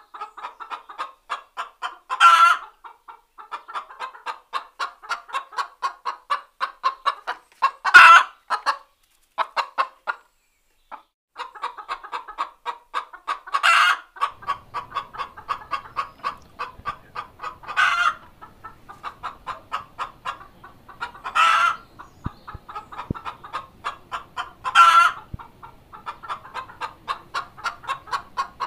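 A hen's egg-laying cackle: fast, steady clucking, several clucks a second, broken every four to six seconds by a loud drawn-out squawk, about six times in all, with a brief pause about ten seconds in.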